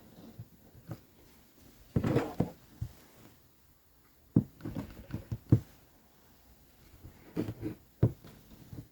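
Fabric being handled and cut on a tabletop: irregular light knocks and rustles, with a cluster about two seconds in and scattered single knocks after.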